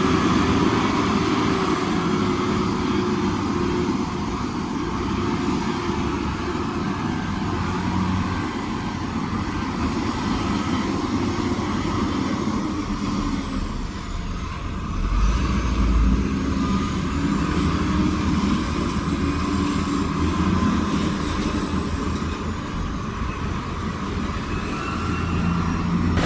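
Heavy construction machinery's diesel engine running under load, its pitch rising and falling as it works. A brief deeper rumble comes about fifteen seconds in.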